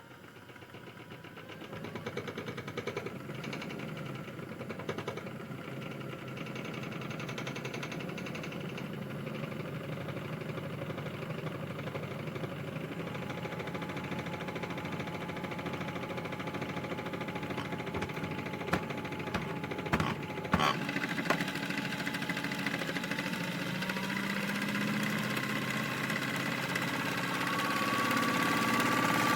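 Small electric motor of a modified toy washing machine running with a steady mechanical rattle and a whine, the drum turning; a few sharp knocks come about two-thirds of the way through. Near the end the whine rises in pitch and grows louder as the motor speeds up.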